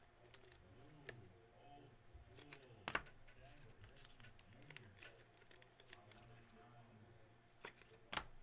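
Faint, sparse clicks and rustles of trading cards in plastic sleeves and top loaders being handled, over a low steady hum. The sharpest clicks come about three seconds in and just before the end.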